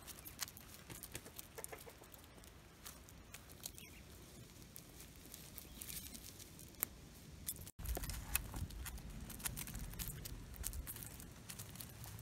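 Brown hens pecking at a heap of dead beetles and bugs on bare dirt: many quick, sharp pecking clicks, with soft clucking. About two-thirds of the way in a low rumble sets in under the pecking.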